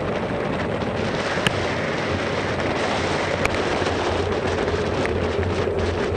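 Steady rush of wind on a bicycle-mounted camera's microphone during a fast descent in heavy rain, mixed with the hiss of tyres on a wet road, with a few sharp clicks.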